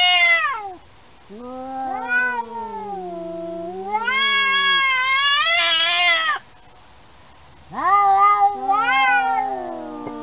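A grey tabby and an orange cat yowling at each other in a face-off. The drawn-out, wavering cries rise and fall in pitch, with the two voices overlapping: a short cry at the start, a long one of about five seconds, then another near the end.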